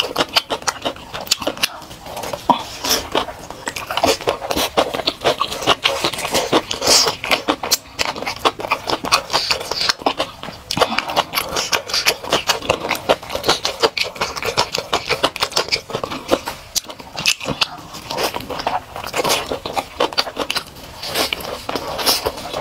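Close-miked eating of spicy, sauce-coated food: wet chewing, lip smacking and sucking, a dense run of short sticky clicks with no pause.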